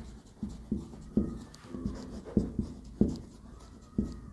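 Writing by hand: a string of short, irregular pen or marker strokes tapping and scraping against the writing surface, about two a second.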